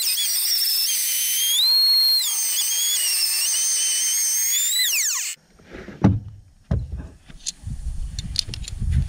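Router with a 3/4-inch dado bit whining at high speed as it cuts a slot through roof decking, its pitch sagging and recovering under load. About five seconds in it is switched off and winds down quickly, followed by a few knocks.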